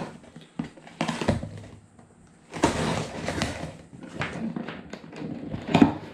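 A small cardboard box and its packaging being opened by hand: irregular rustling, scraping and small clicks, busiest a little before the middle, with one sharp knock near the end.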